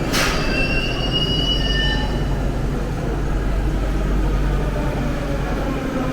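Moscow Metro train running with a steady low rumble. A brief sharp noise right at the start is followed by a high metallic wheel squeal, rising slightly in pitch, that lasts about two seconds.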